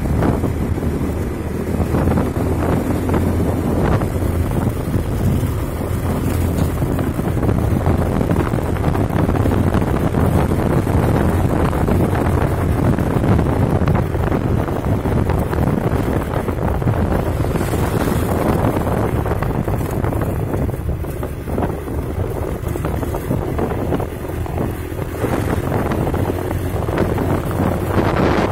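Wind buffeting the microphone of a moving vehicle, over the steady drone of its engine.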